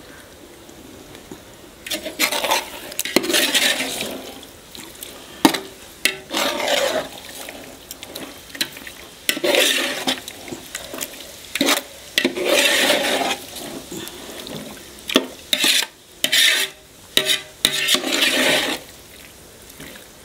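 Slotted metal ladle stirring thick marinated chicken and masala in a large metal pot. It starts about two seconds in: wet scraping strokes come in irregular bouts, with sharp knocks of the ladle against the pot.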